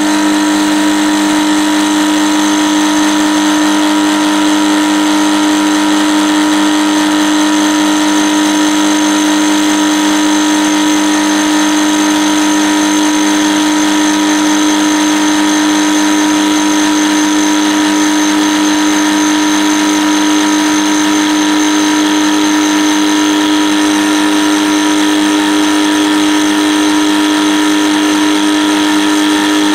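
Drill press converted to a milling machine, running steadily while an indexable carbide-insert end mill cuts a slot in a hardened steel lathe tool holder. It is a loud, even machine hum with one strong steady tone that holds without change.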